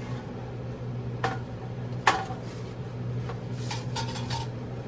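Serving utensils and dishes clinking as sides are dished onto plates. A sharp knock comes about a second in, then a louder clink with a short ring, then a quick run of lighter clinks, all over a steady low hum.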